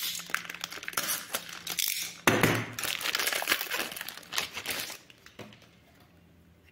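Clear plastic packaging bag crinkling as a circuit board is pulled out of it by hand; the crackling stops about five seconds in.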